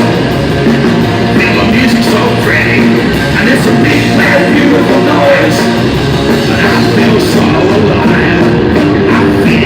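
Punk rock band playing loud live, with electric guitars and a steady drum beat.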